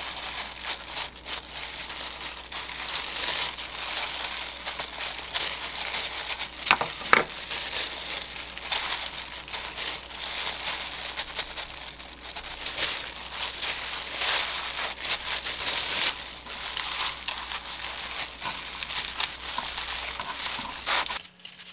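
Clear plastic disposable gloves crinkling and rustling, with the dry crackle of laver, as hands lay fillings on rice and roll a gimbap by hand.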